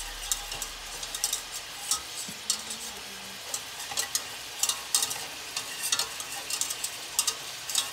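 Wire whisk scraping and clicking against the sides and bottom of a stainless steel saucepan, whisking butter and flour into a roux, over a light sizzle from the heated pan. The clicks come irregularly, several a second.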